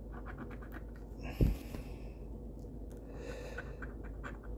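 Scratch-off lottery ticket being scratched off: quick light scraping strokes, two longer hissing passes, and one sharp thump about a second and a half in.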